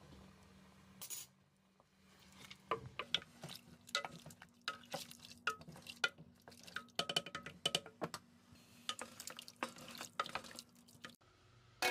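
Spoon clinking and scraping against a steel cooking pot while stirring simmering beef paya: a quick, irregular run of sharp clinks, some ringing briefly, over a faint steady hum.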